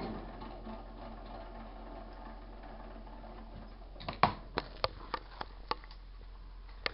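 Microwave oven's running hum cuts off, leaving a faint low hum. About four seconds in, a run of about eight sharp, irregularly spaced clicks and taps follows.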